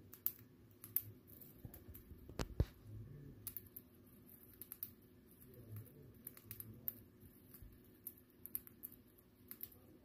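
Cockatiel cracking and husking millet seeds with its beak: a run of small, irregular, crisp clicks, with a louder double click about two and a half seconds in.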